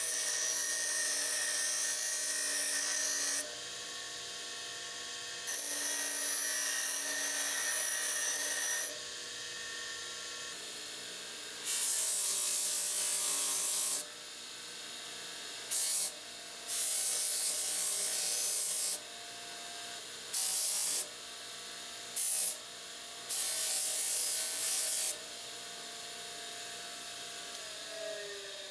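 Power grinder running with a steady whine, and about eight spells of harsh grinding hiss, from a fraction of a second to over three seconds long, as the forged steel rebar piece is pressed against it to round off the arms' ends and take off the sharp edges.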